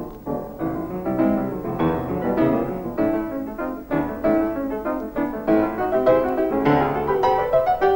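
Background piano music: a steady run of struck notes, several a second.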